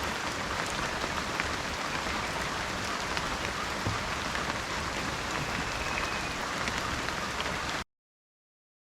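Heavy rain falling steadily, a dense even hiss with scattered drop ticks. It cuts off abruptly near the end, leaving silence.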